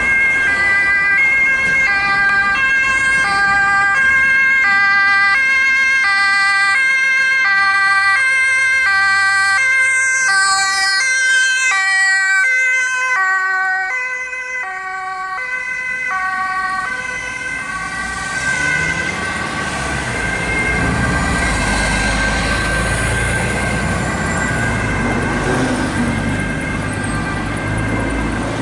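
Ambulance two-tone siren sounding its high and low notes in turn, about one pair a second, on an urgent emergency run. About two-thirds of the way through it fades as the ambulance drives away, and road traffic with a heavy vehicle's engine takes over.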